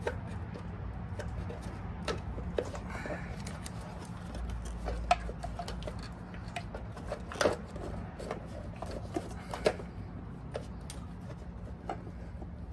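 Scattered light clicks and knocks of a motorcycle's battery cover and wiring connectors being handled and worked free, a few sharper knocks about halfway through, over a steady low hum.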